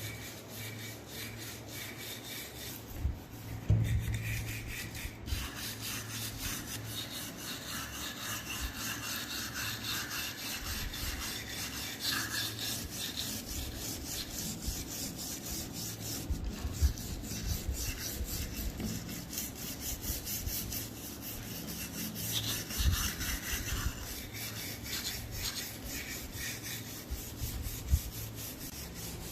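Fast, regular rasping strokes of a hand tool working a part of an old gun during restoration, kept up steadily with a few louder knocks in between.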